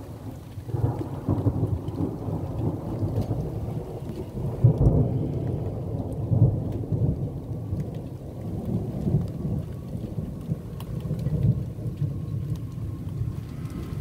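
Thunder rumbling from a cloud-to-cloud lightning storm, a continuous low rolling rumble that swells and fades, loudest about five and six and a half seconds in.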